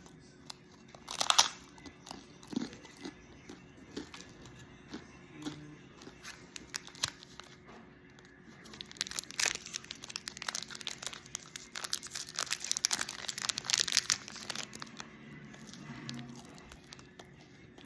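Irregular crinkling and crackling, like something being crumpled or handled, with a sharp burst about a second in and a dense run of crackles in the middle stretch.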